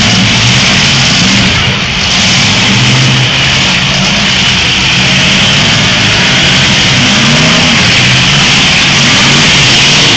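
Several demolition derby cars' engines running and revving together, a loud steady din with the engine pitch rising and falling more in the last few seconds.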